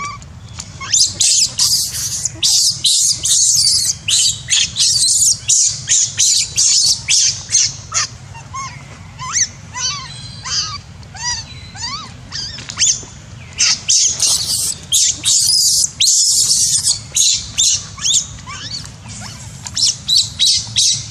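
Newborn long-tailed macaque screaming: rapid runs of shrill, high-pitched shrieks with short gaps, easing for a few seconds midway into thinner squeals that rise and fall before the shrieking picks up again.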